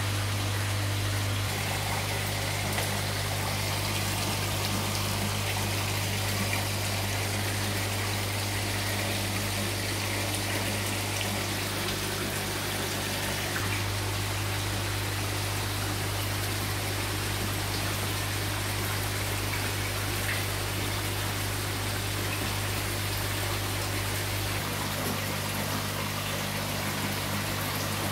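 Aquarium air stone bubbling, a steady rush of water over a low, steady pump hum. The hum changes in level three times.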